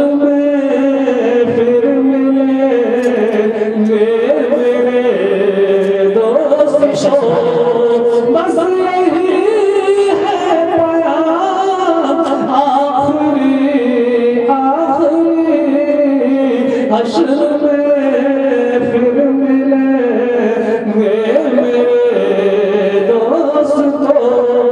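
A man singing a slow devotional song into a handheld microphone, unaccompanied, drawing out long held notes that bend and ornament as they go.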